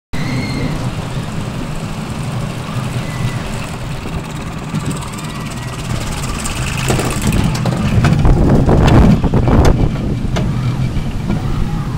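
Wild mouse roller coaster car running on its steel track, heard from on board: a steady low rumble of the wheels that gets louder and clatters for a few seconds from about seven seconds in as the car goes through the turns.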